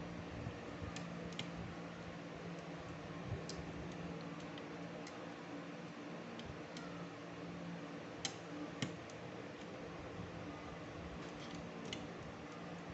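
Scattered small clicks and ticks of a laptop's CPU air cooler, a heatsink with copper heat pipes and fan, being worked loose and lifted off the motherboard by hand, over a low steady hum. The two loudest clicks come close together a little past the middle.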